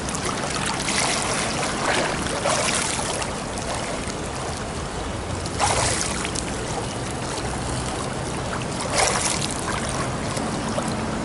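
Pool water splashing and churning from a swimmer doing one-arm backstroke: a steady wash from the flutter kick, with several louder splashes as the arm enters and pulls through the water.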